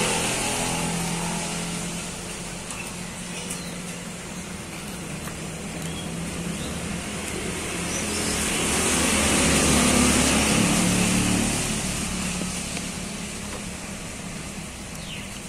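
A motor vehicle passing by with its engine running: the noise fades over the first few seconds, then swells again to a peak about ten seconds in and fades away.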